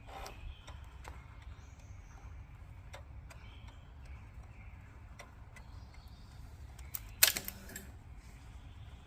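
Scattered light clicks and a louder clack about seven seconds in, with no engine cranking or running: a BMW F650 GS Dakar's starting circuit clicking as it fails to crank, a fault the owner asks might be electrical.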